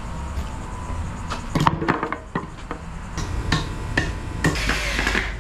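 Scrap wooden boards being handled on brick pavers: a scatter of sharp wooden knocks and clatter, with a short rough scraping noise near the end.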